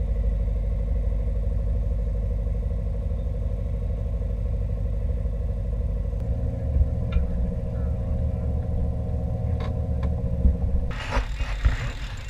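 Sailboat's inboard engine running steadily as the boat motors through the harbour, a low rumble whose note shifts slightly about six seconds in. About eleven seconds in it gives way to wind noise and clicking.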